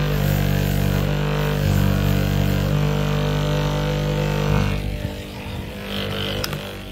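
Electric bench grinder fitted with buffing wheels running with a steady, droning hum; the hum drops and thins out about five seconds in.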